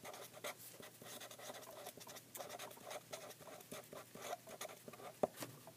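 Felt-tip pen writing on paper: faint, short scratchy strokes as a few words are written, with one sharp tick about five seconds in.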